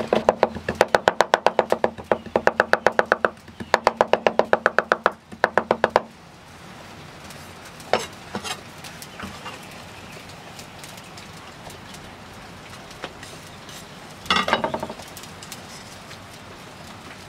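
A wide-bladed chef's knife rapidly chopping fresh dill on a wooden cutting board: fast, even knocks of the blade on the board, about eight a second, with a short break midway, stopping about six seconds in. Later a single knock, and near the end a brief clatter of knocks.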